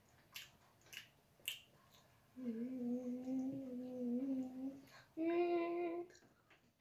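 A child's voice singing two long held notes, the first for about two and a half seconds, the second shorter and higher, after a few soft clicks.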